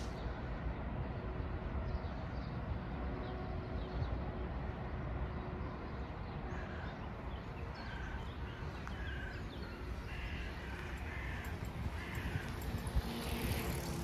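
A crow cawing: a series of short calls about halfway through, over a steady low outdoor rumble.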